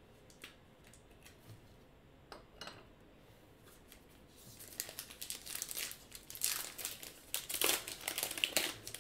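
A baseball card pack's wrapper crinkling and tearing as it is ripped open, starting about four and a half seconds in and running on in a dense rustle. A few faint taps of cards being handled come before it.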